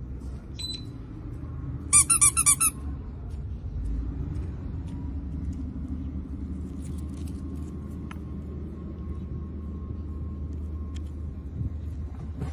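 Rubber squeaky toy squeezed rapidly, about six sharp squeaks in under a second, about two seconds in. A low steady rumble runs underneath.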